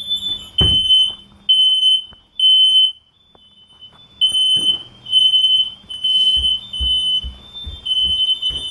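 Several household smoke detectors sounding their alarm with high-pitched beeps: a group of three, a short pause, then two alarms beeping out of step at slightly different pitches. They were set off by a candle being lit, with no fire. A low thump comes about half a second in, and a few more follow in the second half.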